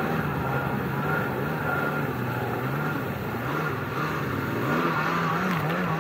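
Two-stroke engine of a 1998 Kawasaki SXi Pro stand-up jet ski running under way over a steady rush of water. Its pitch wobbles up and down in quick swings in the last couple of seconds as the throttle and the hull's bouncing load it and unload it.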